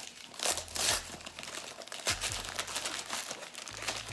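Gift wrapping being torn open and crumpled by hand, in irregular crinkling rustles with a few louder crackles.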